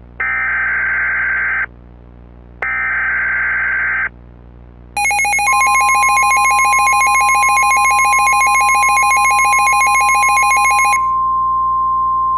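Emergency Alert System tones. First come two harsh, screeching digital data bursts (SAME header) of about a second and a half each, a second apart. About five seconds in, the attention signal starts: a loud, rapidly pulsing, ringing alarm tone over a steady single tone. The pulsing stops about a second before the end while the steady tone carries on.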